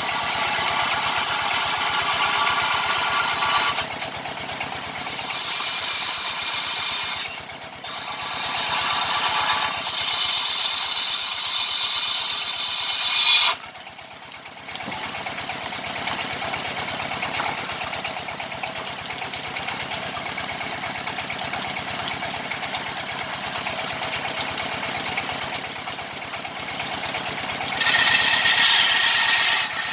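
Power tool cutting into a jackfruit-wood drum body, loud and continuous, easing off briefly twice (about 7 and 14 seconds in) before running on steadily.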